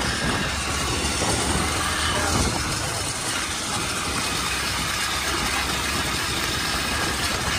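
Motorcycle engine running as the bike is ridden over a rough, stony dirt track, with a steady rush of wind and road noise.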